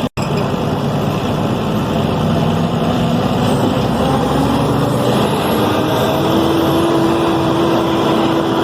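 Deutz BF6M 1013 turbocharged six-cylinder diesel engine of a Tatsa Puma D12 city bus running steadily, its pitch slowly rising and strengthening through the second half as the engine picks up revs.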